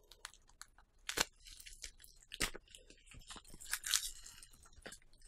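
Clear plastic wrapping being pulled and torn open by hand: crinkling with a few sharp crackles, the loudest about four seconds in.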